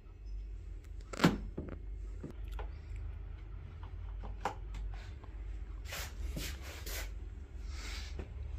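A sharp click about a second in, then scattered lighter clicks and knocks and a short hiss near the end, over a steady low hum.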